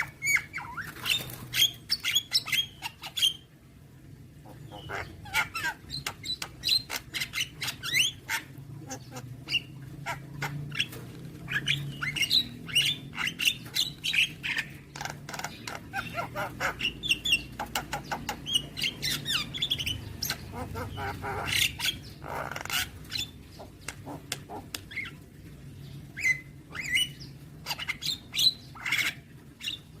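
Javan myna (jalak kebo) singing a long, varied song of rapid chirps, clicks, squawks and whistled notes, with only brief pauses.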